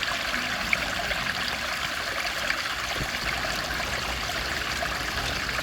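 Water flowing in a stream, a steady rush.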